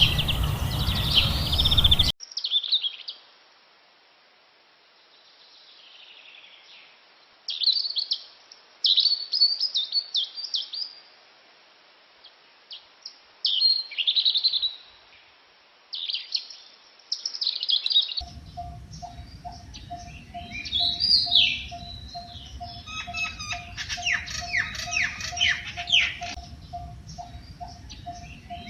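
Wild birds chirping in quick clusters of short high notes. About two-thirds of the way through, a background hiss and a steady repeated lower note, about two a second, join the chirping.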